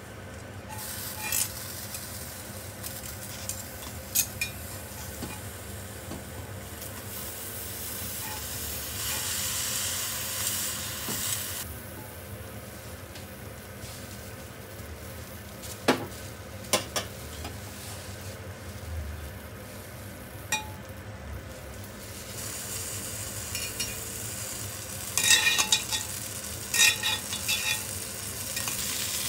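Eggplants sizzling in a hot cast-iron mini Dutch oven, the sizzle swelling twice, while a knife and metal utensils scrape and click against the pan. A quick run of ringing metal clinks comes near the end.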